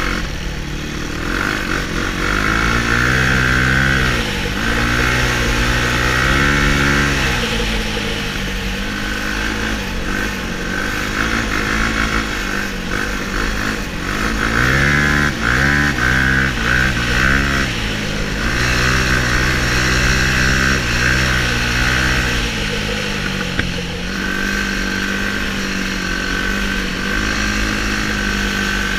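Sport quad's engine heard from on board, revving up and down over and over as the throttle is opened and closed, its pitch climbing and dropping several times, with a steady high whine over it.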